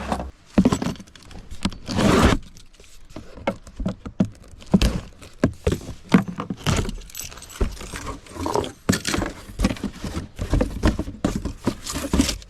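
New electric chainsaw being unpacked and handled: irregular rustling, clicks and clatter of packaging and plastic and metal parts.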